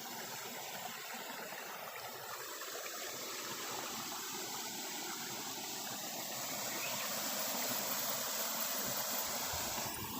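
Small stream running: a steady rush of water that swells a little past the middle.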